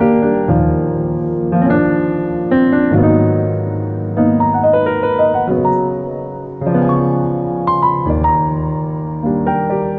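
Background piano music: a slow, gentle piece with a new chord struck about every second under a simple melody.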